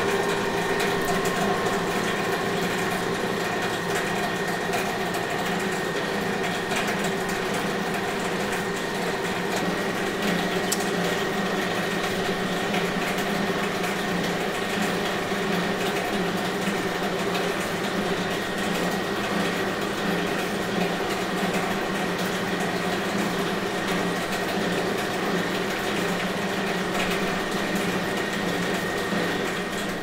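A conveyor running steadily: an even machine hum with a light rattling clatter and a thin high whine held throughout.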